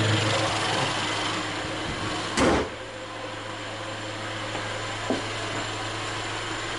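A steady mechanical hum with hiss that eases off over the first two seconds. A single loud knock comes about two and a half seconds in, and a faint click near five seconds.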